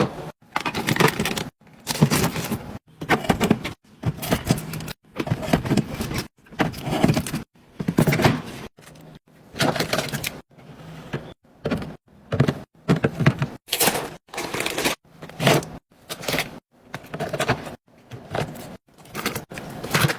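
A rapid string of short clips of food containers and items being handled, set down and knocked against shelves while a fridge is restocked, with clatter, knocks and scraping. Each burst lasts about half a second to a second and is cut off abruptly.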